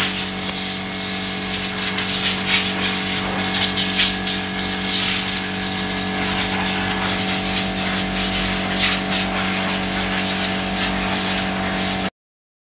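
Compressed air hissing steadily from a long spray wand on an air hose, directed into a car's engine bay, over a steady mechanical hum. It cuts off abruptly just before the end.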